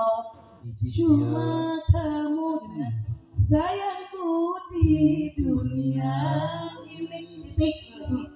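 A woman singing into a microphone through a PA, in phrases with held, sliding notes, over a live band's backing.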